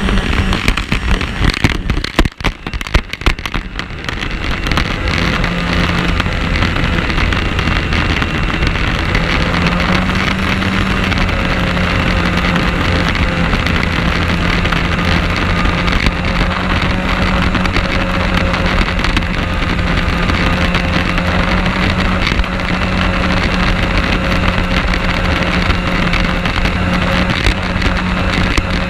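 Snowmobile engine running steadily under way, its note holding nearly constant, with a rushing noise of wind and snow spray over the camera's microphone. The sound is choppy for the first few seconds, then evens out.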